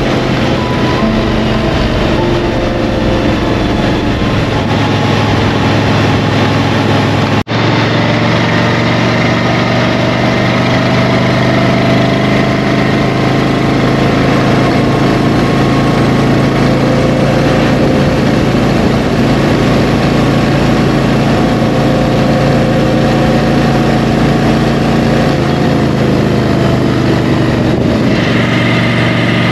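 Motorcycle engine running steadily under way, with a steady rush of wind noise; the sound cuts out for an instant about seven seconds in.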